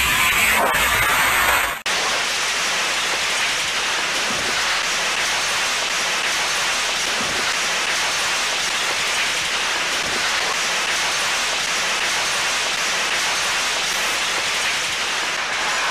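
Steady, loud hiss of static, even and featureless. For the first two seconds a rougher noise with a deep rumble underneath plays instead, and it cuts off sharply.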